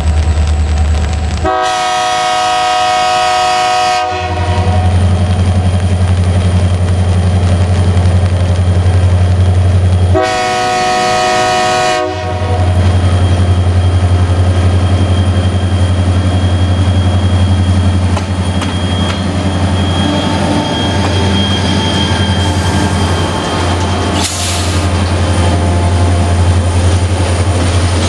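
Diesel freight locomotive sounding its multi-tone air horn in two blasts a few seconds apart, each about two seconds long, over the steady heavy drone of its diesel engine as it approaches and passes hauling container wagons.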